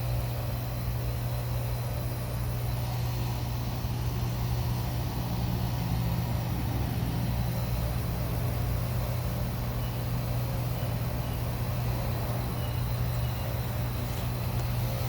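2020 Tempstar 3-ton heat pump outdoor unit running steadily through a defrost cycle, its compressor giving a constant low hum with a layer of machine tones above it.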